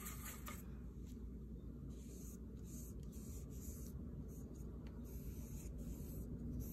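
Faint scratching and swishing of a watercolor brush: it works the paint pan briefly at the start, then strokes paint onto paper, over a low steady hum.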